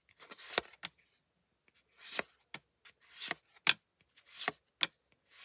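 Pokémon trading cards being flipped through by hand, one card slid across the stack about once a second. Each slide gives a short papery swish of card rubbing on card, with a few sharp light taps between them.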